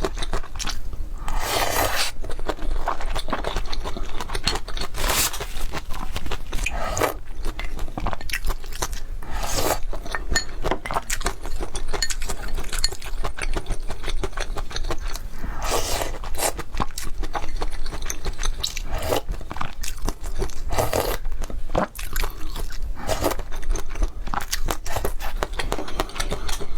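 Close-miked eating of river-snail rice noodles (luosifen): crunchy chewing with many short crunches, broken every few seconds by a longer slurp.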